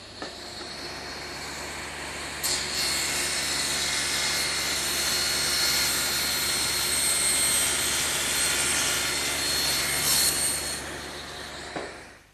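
Table saw running, its blade cutting along a board stood on end for a tenon cheek cut. The cut grows louder about two and a half seconds in, holds steady, and the sound dies away just before the end.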